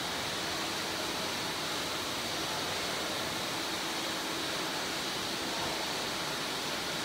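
Steady machinery noise of a factory hall: an even hiss with a faint constant hum and a faint high whine, from fans and machinery running.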